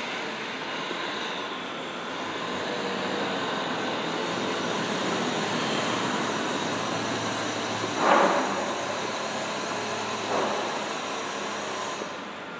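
A steady mechanical rushing noise with a hum swells for about twelve seconds and then drops away suddenly. Two short, louder sounds stand out over it about eight and ten seconds in.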